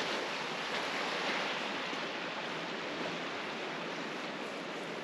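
Steady rush of a large creek's flowing water.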